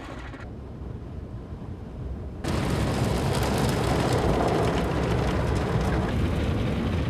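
Automatic car wash brushes and water working over a car, a rushing noise: a dull, muffled rumble at first, then a much louder rushing that starts suddenly about two and a half seconds in.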